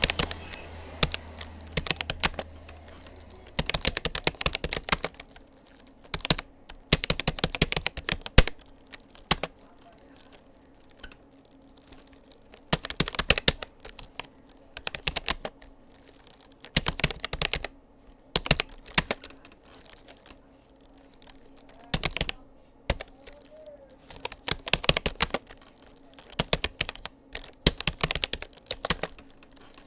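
Typing on a Rapoo computer keyboard: runs of rapid key clicks in bursts, broken by short pauses.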